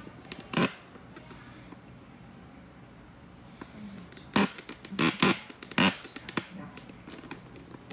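A few sharp knocks or bumps: one near the start, then a quick cluster of four or five louder ones around the middle.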